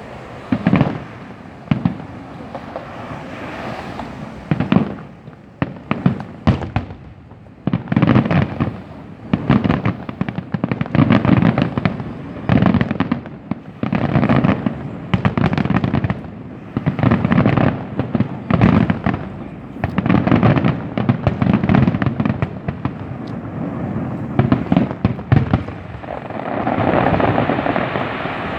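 Fireworks going off in a dense barrage: booms and sharp bangs in quick clusters, several every second or two, over a steady rumble.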